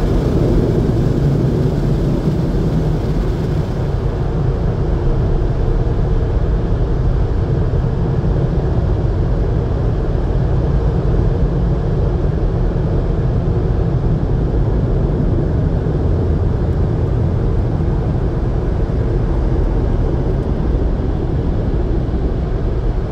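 Car wash air dryers blowing steadily, heard muffled through the closed car. The upper hiss thins out about four seconds in and the low, even blowing carries on.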